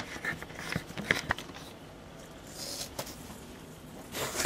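Light rustling and scattered small clicks of packing being handled inside an opened shipping box: foam, plastic wrap and cardboard. A louder rustle comes near the end.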